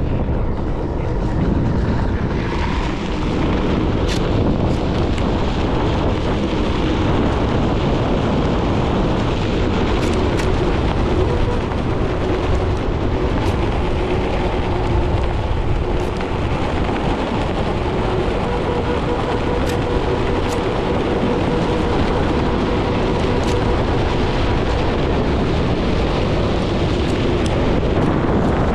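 Wind rushing over the microphone while a Onewheel GT-S electric board is ridden fast over packed dirt, with the tyre rolling and a faint steady whine from its hub motor. There are a few small clicks along the way.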